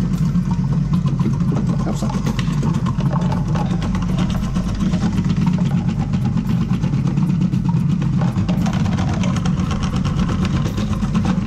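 Krups i Prep & Cook food processor running its Shred & Slice attachment at speed 8 while slicing carrots. A steady motor hum with rapid rattling clicks throughout.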